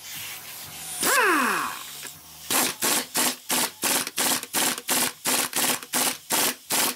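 Impact gun running a strut top nut down onto the shaft. About a second in it gives a short spin whose pitch falls away. Then it fires in short bursts, about three a second, as it hammers the nut tight.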